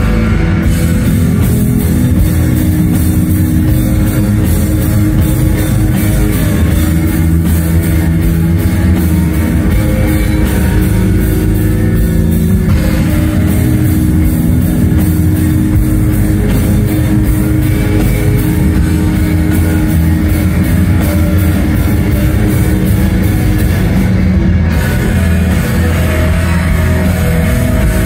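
A post-rock band playing live and loud: layered electric guitars, bass guitar and a full drum kit.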